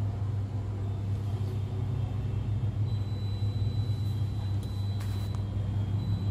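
Hot air rework station blowing at a low air setting, a steady low hum, while it heats solder paste on a CPU reballing stencil at 300 °C to melt it into solder balls.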